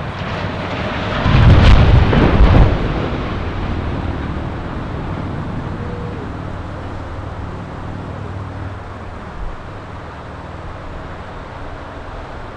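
A tall power-plant smokestack crashing to the ground after being felled: a heavy, very loud crash about a second in, lasting a second or two, then a long deep rumble that slowly dies away.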